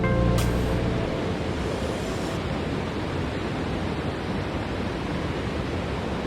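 Steady rush of a small stream's flowing water, an even wash of noise; the last notes of music fade out in the first second.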